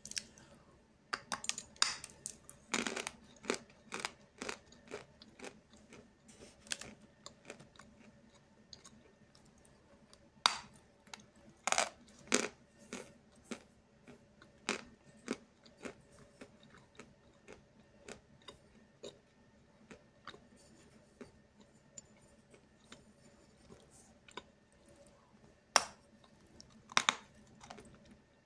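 Close-miked biting and chewing of a lump of "Snezhok" edible chalk: dry, sharp crunches at an irregular pace, coming in clusters with fainter crumbly chewing in between.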